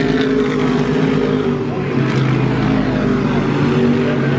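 Engines of modified race cars running around the oval, a steady drone of several engine notes layered together.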